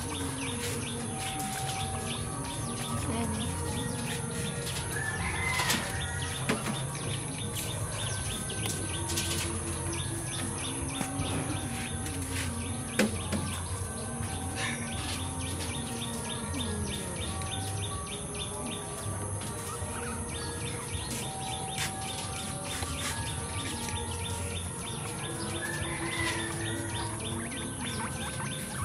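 Birds chirping and singing in quick repeated notes over a steady high hiss.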